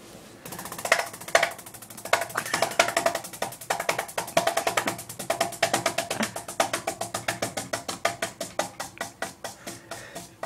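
Ceiling fan blades slapping repeatedly against a hand held up into them: a rapid clatter of smacks that slows steadily as the fan loses speed.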